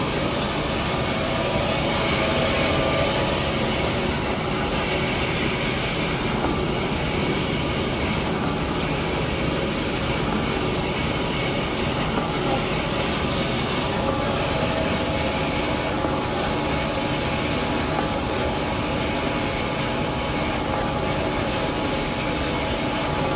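Toilet paper and kitchen towel band saw cutting machine running steadily, its motor and saw band making a continuous mechanical noise with a few faint steady tones.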